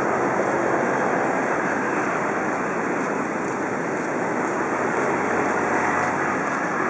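Steady, unbroken rush of seaside street ambience: surf on the beach blended with passing road traffic.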